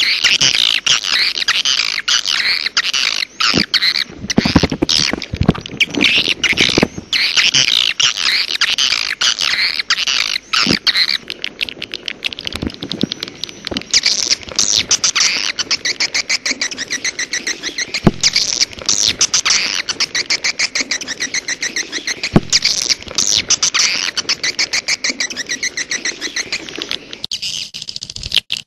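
Swiftlet lure call: a recording of edible-nest swiftlets, a dense, continuous chatter of rapid clicks and high twittering chirps, played to draw wild swiftlets in.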